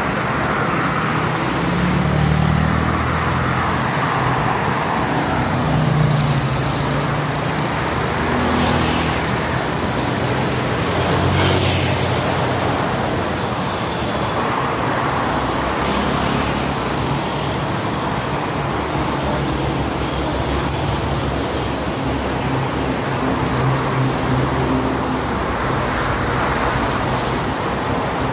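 Traffic on a multi-lane toll highway: cars, trucks and buses passing in a continuous stream of tyre and engine noise, swelling a little now and then as vehicles go by.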